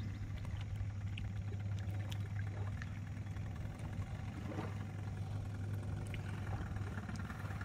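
A 1982 Evinrude 15 hp two-cylinder two-stroke outboard idling steadily as a low, even hum.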